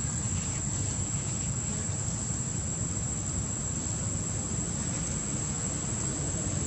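Steady outdoor ambience: a continuous high-pitched insect drone over a low, even rumble.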